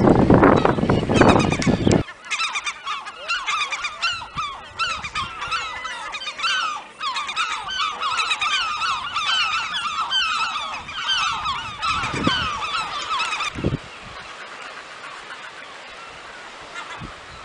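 A seabird colony calling: many birds giving rapid, harsh, overlapping calls in a dense chorus that cuts off abruptly about 13 seconds in. A loud low rumbling noise fills the first two seconds.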